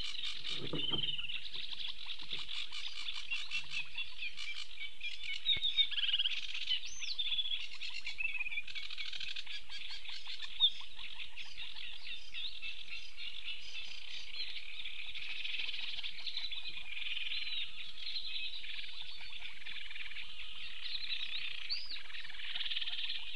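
Small birds singing steadily in a dense chorus of chirps and trills, with a sharp click about ten seconds in.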